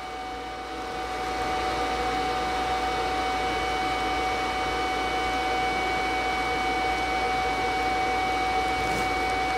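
Steady machine whir, like a fan or blower, with a steady hum tone running through it; it grows a little louder over the first two seconds, then holds.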